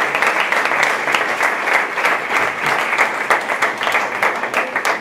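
A roomful of people applauding, a dense, steady clapping with no pauses.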